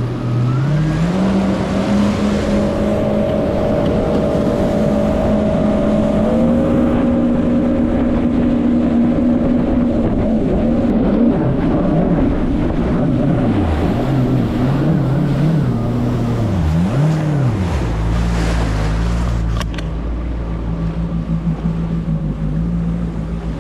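Jet ski engine accelerating, its pitch climbing over the first couple of seconds and then holding at a steady cruise, with water and wind rush. About two-thirds through the throttle goes up and down several times, then the engine settles at a lower, steady pitch.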